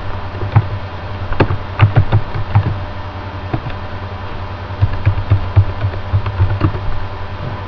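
Computer keyboard keys being typed in two short runs of clicks, over a steady low hum.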